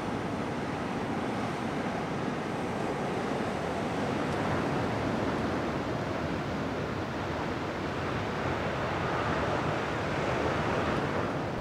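Large ocean waves breaking, a steady rush of surf and whitewater with no distinct single crash.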